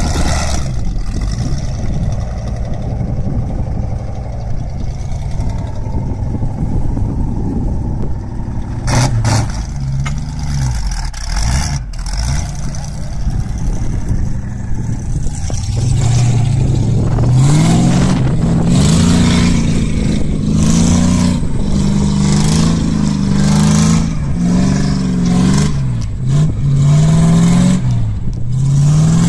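An engine running steadily, then revving up and down over and over in its second half, with clattering.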